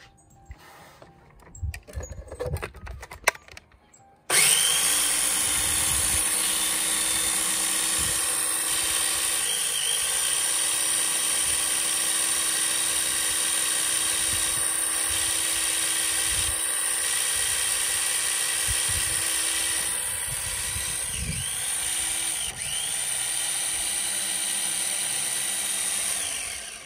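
Electric blender starting about four seconds in and running steadily for some twenty seconds, grinding soaked, burnt chili seeds into a paste. Its pitch dips briefly a few times, and it shuts off just before the end.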